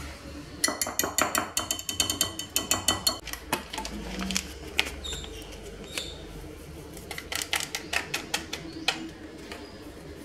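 Wire whisk clicking fast against a glass mixing bowl as it stirs a thick, grainy sesame seed mixture for about three seconds, followed by scattered light clinks and taps on the bowl.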